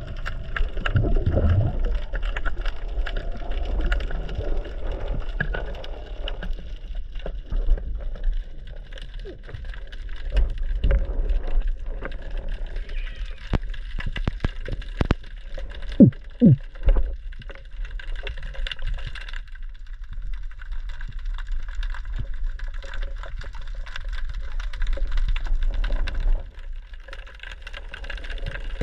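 Muffled underwater rumble with scattered clicks and knocks, and a few sharper knocks a little past the middle.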